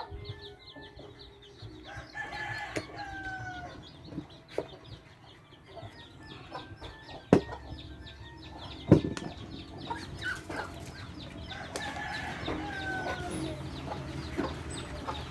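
Chickens clucking in the background, with short falling calls twice. Sharp clicks come through, the two loudest about seven and nine seconds in.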